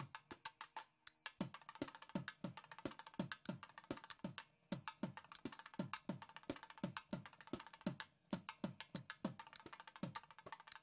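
Instrumental background music carried by a quick, steady drum beat of about three strokes a second, the low strokes dropping in pitch, with a few held high notes above. It breaks off briefly about a second in, near the middle and about eight seconds in.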